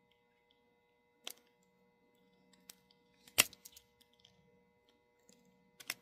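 A few sharp, scattered clicks of a small hand screwdriver working a stubborn tiny screw in a plastic model locomotive body, the loudest about halfway through.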